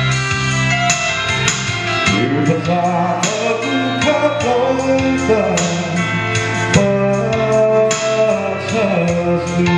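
A male vocalist singing into a handheld microphone over instrumental backing music, a gospel song performance amplified through a PA.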